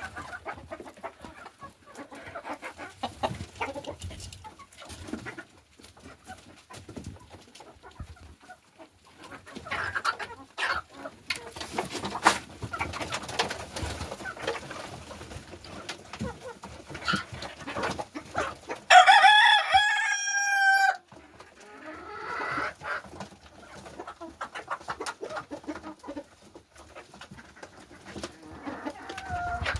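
A flock of chickens clucking, with scattered clicks among them. About two-thirds of the way through, a rooster crows once, loudly, for about two seconds.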